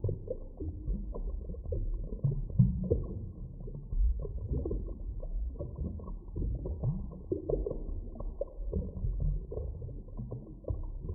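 Underwater ambience: a muffled, low rumble of moving water with irregular gurgles and pops.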